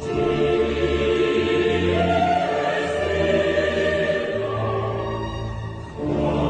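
Background music: a choral piece with sustained sung chords over held low notes, swelling again near the end.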